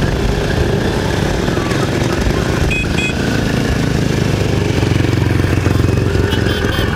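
A line of old sidecar motorcycles riding slowly past one after another, their engines making a fast, low pulsing beat that grows a little louder near the end.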